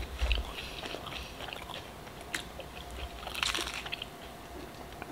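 Close-up mouth sounds of a person biting and chewing a breadcrumb-coated, deep-fried Korean mozzarella corn dog: soft crunches and wet chewing, with a louder crunch about three and a half seconds in.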